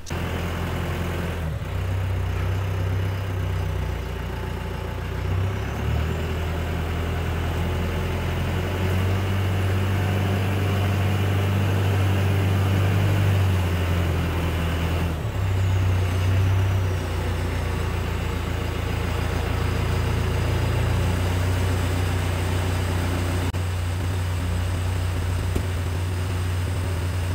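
Branson compact tractor's diesel engine running steadily with a low hum as the tractor drives forward with a load on its front loader.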